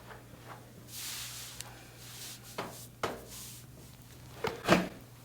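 Hands moving over a patient's back and the treatment table during a chiropractic session: soft rubbing and a few short clicks, the loudest a knock near the end, over a faint steady hum.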